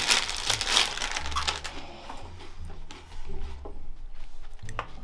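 Close crinkling and crunching, densest in the first second and a half, then thinning to scattered crackles and clicks over low steady tones.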